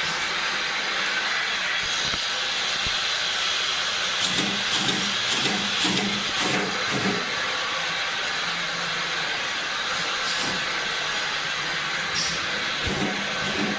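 Automatic bottle filling line running: a steady hiss with scattered sharp clicks, and a short run of rhythmic clunks about four seconds in.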